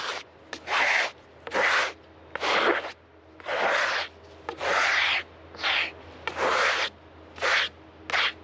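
Rough brushing strokes across a freshly sawn honey locust slab, sweeping off sawdust, in an even rhythm of about one stroke a second.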